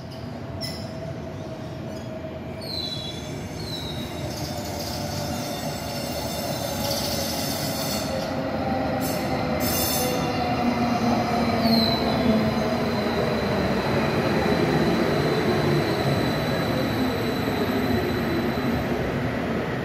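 Tren Urbano electric metro train pulling into the station, growing steadily louder as it approaches. Its motor whine falls slowly in pitch as it brakes, with a few short high squeals.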